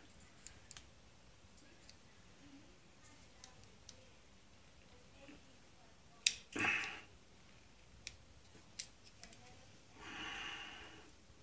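Faint clicks and light scraping of a thin steel punch against the hammer and lockwork of a stainless Ruger Security Six revolver as a spring-loaded part is compressed and fitted, with a sharper click about six seconds in. Two breaths out, one just after that click and one near the end.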